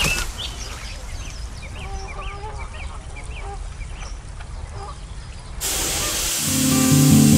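Birds calling: a string of short chirps and honk-like calls over a low background rumble. Near the end, strummed acoustic guitar music starts.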